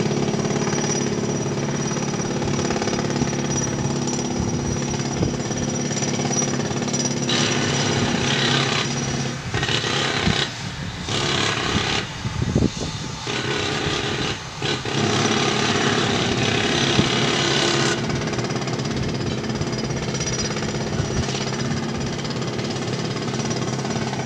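Pneumatic hammers working at a sandstone rock face, breaking off rock, hammering steadily over a constant machine hum, with a few brief pauses around the middle.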